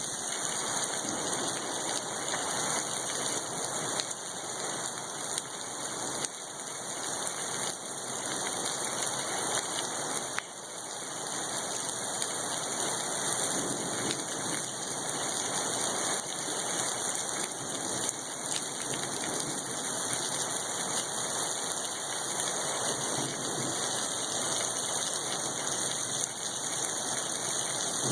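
Heavy storm rain pouring down steadily, with a brief dip in loudness about ten seconds in.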